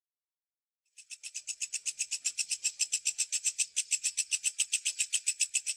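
A high, rapid chirring made of about eight short pulses a second. It starts about a second in and swells louder over the next second, then holds steady.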